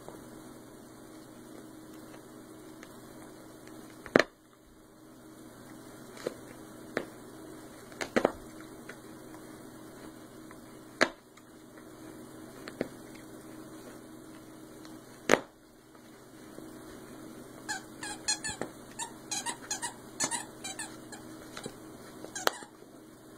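A husky chewing a squeaky rope toy: a few sharp single squeaks a second or several apart, then a quick run of squeaks over the last few seconds.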